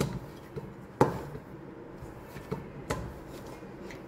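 Gulab jamun dough being kneaded and pressed by hand in a stainless steel bowl: a few dull knocks as the dough and hand press against the bowl, the loudest at the start and about a second in, two softer ones later.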